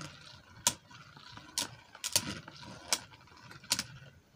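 Two Beyblade spinning tops whirring in a plastic bowl and knocking together, with about five sharp clicks as they clash.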